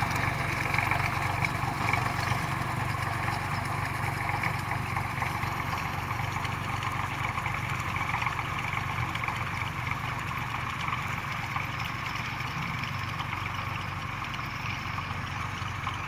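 Tractor engine running steadily while it pulls a rotary rake through straw. The sound gradually gets quieter as the tractor moves away.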